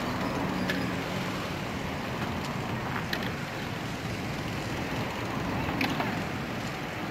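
Charcoal pit grill with racks of huli huli chicken on spits: a steady rushing fire noise with a few sharp metal clicks as the spit racks are turned by hand.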